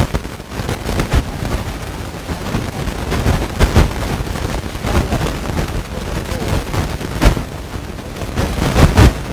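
Loud crackling and rumbling distortion with sharp pops, drowning out a man's voice: disrupted, corrupted recording audio.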